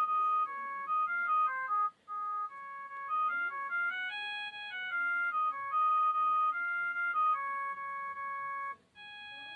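myPhone Rumba mobile phone playing one of its ringtones: an electronic melody of short, stepped single notes. It breaks off briefly about two seconds in and again near the end.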